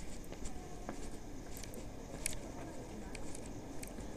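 Footsteps of someone walking on pavement, making light, irregular clicks, with a faint low background rumble of street noise.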